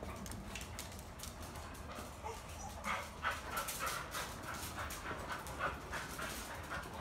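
A dog whimpering and panting in quick, short repeated sounds, about three a second, starting about three seconds in and lasting a few seconds.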